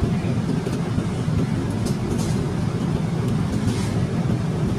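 Steady airliner cabin noise in flight: a low, even rush of engine and airflow sound. A few faint, brief rustles from a plastic food container being handled sit on top.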